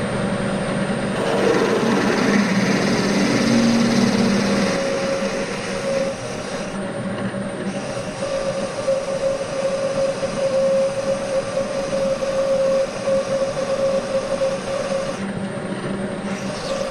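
Bridgeport milling machine running with an end mill cutting into a metal bar: a steady machining noise with a constant high tone that grows stronger midway through.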